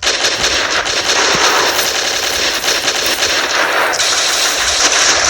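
Continuous rapid machine-gun fire, starting abruptly and keeping up without a pause.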